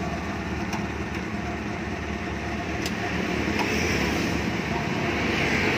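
An old off-road jeep's petrol engine idling steadily with an even low rumble, and a few light clicks as the bonnet catch is worked, the sharpest about halfway through.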